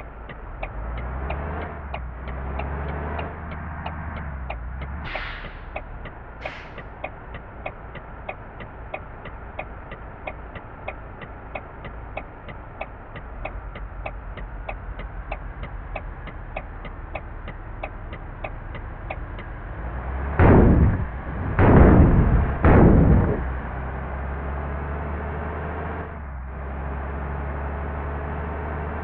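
A bus running in slow traffic with a steady low hum and a regular ticking about twice a second, two short hisses early on, then three loud short blasts of a telolet horn, the multi-tone bus horn, about two-thirds of the way through.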